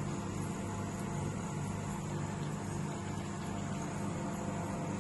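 Convection microwave oven running in convection preheat mode, set to 110 °C: a steady hum with a few constant low tones and a faint even hiss.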